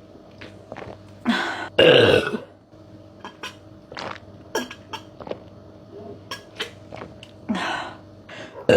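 A woman burping, brought on by fizzy cherry soda: two loud burps back to back about a second in, and two more near the end, with faint short clicks between.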